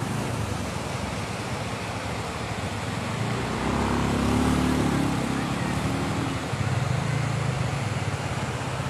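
Fast-flowing floodwater rushing past houses, a steady dense rush of noise, with a low hum that grows louder in the middle.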